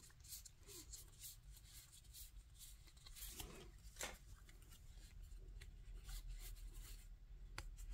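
Faint rustling and light ticks of game cards being handled: a stack of cards is put back into the card box, with a slightly louder tap about four seconds in, and another stack is picked up and fanned.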